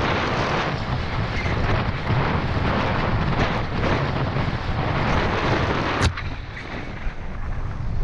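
Mountain bike running fast down a rough dirt trail: wind rushing over the camera microphone, with tyre rumble and the bike rattling over the ground. A sharp knock about six seconds in, after which the rush eases as the bike slows.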